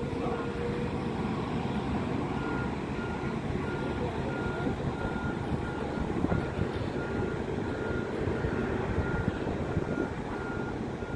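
A ground vehicle's reversing alarm sounding a steady run of short beeps at one pitch, starting about two seconds in, over a steady rumbling background noise.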